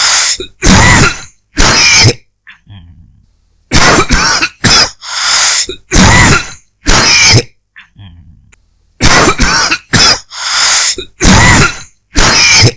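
A person coughing dry coughs, in three fits of several short, loud coughs each, with brief quieter pauses between the fits.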